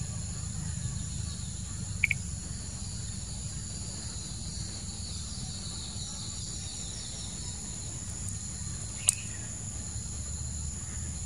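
Steady high-pitched insect drone with a low rumble underneath. A short chirp comes about two seconds in, and a single sharp click near the end.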